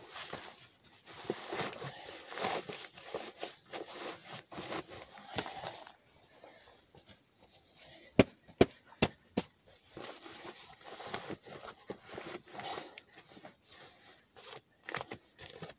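Backpack being packed by hand: fabric rustling and gear shuffling as items are pushed down into the pack. About halfway through come four sharp knocks in quick succession, the loudest sounds here.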